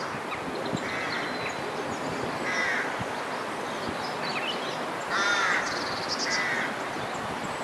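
Birds calling in about four or five short, harsh calls, the loudest a little past halfway, over a steady noise of wind.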